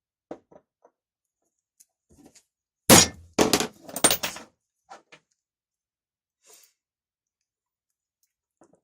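Hammer blows on a pin punch driving the tight retaining pin out of a chainsaw starter ratchet: three or four sharp metal strikes close together about three seconds in, with a few light taps before and after.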